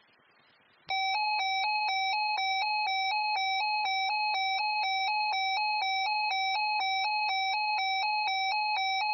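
Electronic alert tone switching back and forth between two pitches about twice a second, starting about a second in: the alarm that precedes a weather radio severe weather broadcast.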